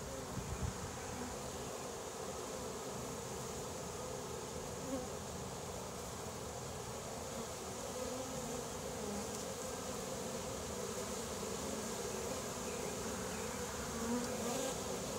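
A swarm of honeybees buzzing steadily around a wooden nuc box, the hum of many bees flying at once. A few soft knocks come in the first second.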